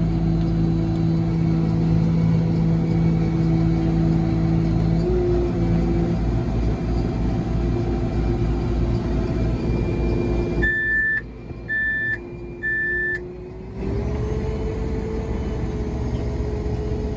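A self-propelled sprayer's engine running steadily, heard from inside the cab while the machine is driven. A little past the middle the engine sound drops away and three short electronic beeps sound about a second apart, then the engine returns a little higher in pitch.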